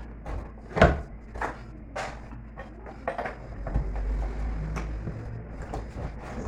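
Metal tools and parts clicking and knocking as they are handled during a washing-machine repair. The loudest knock comes a little under a second in, with a few lighter ones after it.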